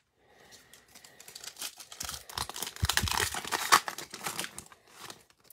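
Wrapper of a Panini Illusions basketball card pack being torn open by hand, with a dense crackling and crinkling. It is loudest in the middle and trails off near the end.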